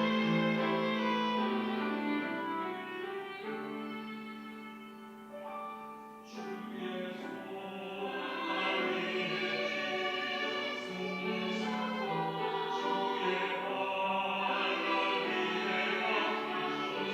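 Church choir singing an anthem with instrumental accompaniment, the strings among it. The music softens to a quiet point about five seconds in, then the choir comes back in fuller and louder.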